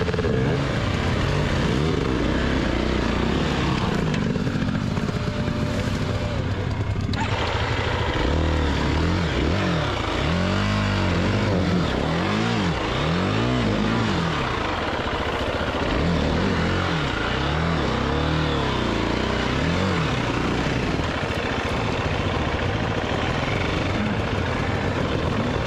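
Enduro dirt bike engine running under load on a rough trail, revving up and down over and over in short bursts from about a third of the way in, over a constant rush of noise.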